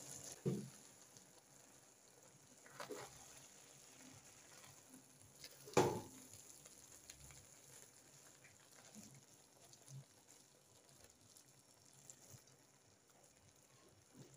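Faint scraping and shuffling of a spatula stirring cooked pilau rice in a pot, with a few scattered knocks; the loudest, a sharp knock, comes about six seconds in.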